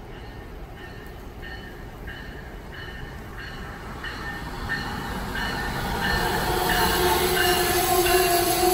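Amtrak ACS-64 electric locomotive and its passenger cars approaching and passing at speed, growing steadily louder. A rapid run of short high rings from the wheels on the rails comes about three a second. A steady hum from the train grows in about six seconds in.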